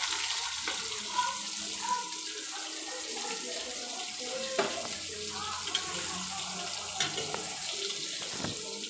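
Soya chunks sizzling as they fry in oil in an aluminium kadai, a steady hiss with a few sharp clicks.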